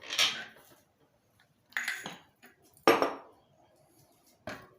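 Metal clinks and knocks, four separate ones, as the axle is worked out of a bicycle rear hub and the steel parts and wrenches knock together.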